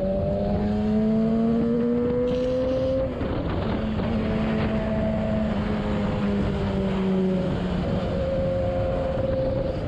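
Sport motorcycle engine heard from the rider's helmet camera, its pitch rising under acceleration for about three seconds, then a shift, then running steadily at road speed, with wind rushing over the microphone.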